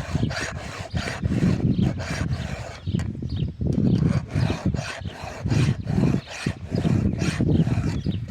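A file rasping across a chainsaw chain's cutter teeth in a series of steady strokes, about one a second, as the chain is sharpened by hand.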